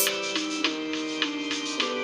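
Background music: held chords that shift every half second or so over a light, steady beat.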